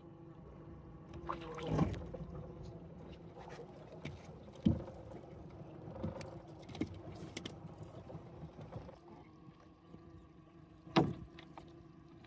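Small boat's motor running steadily at low speed, with three sharp knocks on the boat, the loudest about eleven seconds in.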